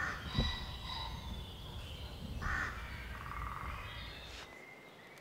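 Woodland birds calling, with several short, harsh, caw-like calls over a low background rumble. The background drops away about four and a half seconds in.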